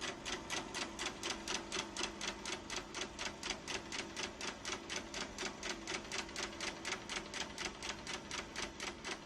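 Film projector running: an even mechanical clatter of about five clicks a second over a faint steady hum.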